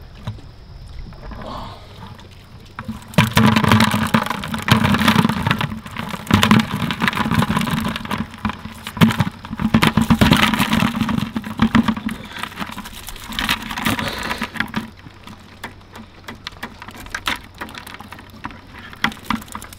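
Wire-mesh crayfish trap rattled and shaken over a plastic bucket, live crayfish clattering and scraping into the bucket. It starts about three seconds in as a dense run of irregular clicks and knocks, goes on for about ten seconds, then falls back to scattered taps.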